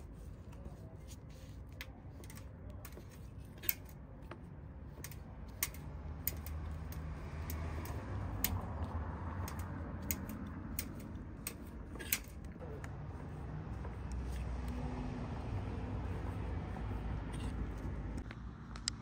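Kebab-kitchen work: irregular sharp clicks and clinks of utensils being handled, over a low steady rumble. The rumble grows somewhat louder about halfway through.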